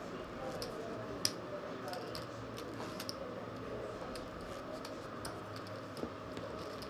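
Poker chips clicking as players handle and stack them: scattered, irregular clicks, the sharpest about a second in and again around three seconds in, over a steady room hum.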